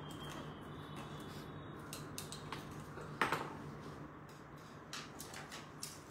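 Small sharp clicks and clinks of jewellery pieces being handled, the loudest about three seconds in, over a low steady hum.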